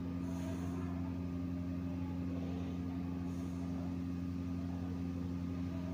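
Steady low electrical hum, with a few faint soft taps from keys being pressed to type.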